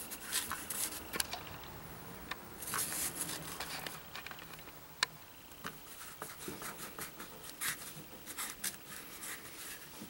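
Fingertips rubbing and pressing a plastic dry-film solder mask sheet down onto a circuit board: irregular faint scratchy swishes with small clicks, as the film is smoothed to push out bubbles.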